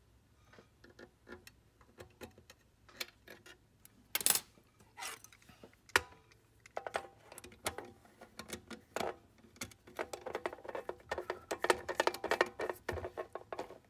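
Small metal clicks and taps as a screw is set in place with hemostats, then a long-reach quarter-inch nut driver turning the screw into the slide projector's focus-motor mount, a rapid run of clicking and scraping through the second half.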